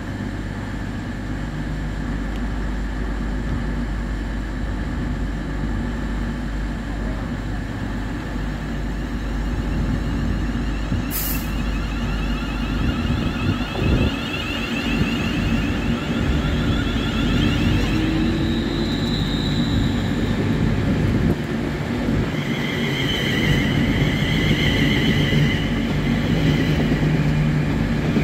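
Siemens Desiro Class 350 electric multiple unit pulling out of a station: a steady low hum while it stands, a short sharp hiss of air about a third of the way in, then a thump and the traction equipment's whine rising in pitch as the train gathers speed and runs past.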